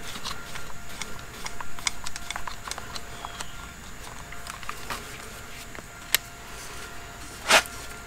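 Light plastic and metal clicks and rattles as a pressure washer spray gun and wand are handled and fitted together, with a sharp click about six seconds in and a louder short clack near the end.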